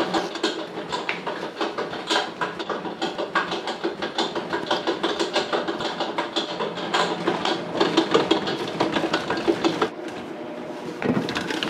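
Rapid, irregular clicking and light clatter of a mesh sieve and mixing bowl as whole wheat flour is sifted and bread ingredients are handled. The tapping thins out about ten seconds in.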